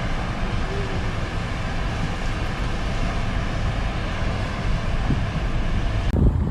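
Steady, even rushing noise. About six seconds in it cuts to gusty wind buffeting the microphone.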